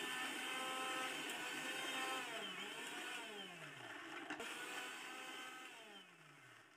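Mixer grinder motor running with a high whine while grinding onions and garlic, its pitch sliding down several times and the sound fading toward the end as the motor slows.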